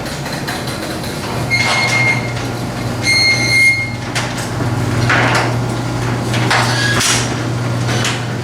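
Garage door opener motor running with a steady hum as the door travels open, with scattered rattles and squeaks from the door. Two short electronic beeps sound about two and three and a half seconds in.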